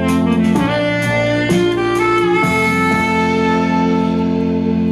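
Instrumental music from a Google Home smart speaker, starting abruptly and loud as the speaker's volume goes up to 100% on a voice command.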